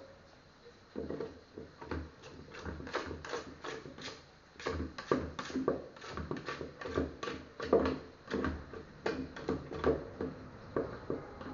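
A utensil scraping and knocking against a metal pot as cooked rice is scooped out: irregular scrapes and clinks, two or three a second.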